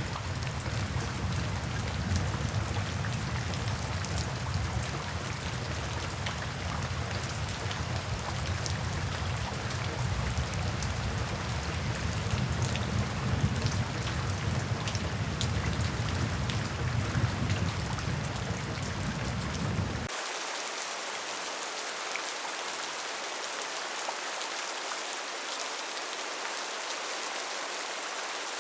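Rain drumming on a tin roof: a dense patter of drops over a low rumble. About two-thirds of the way through, the sound changes abruptly. The low rumble drops away and leaves a steady, thinner hiss of rain.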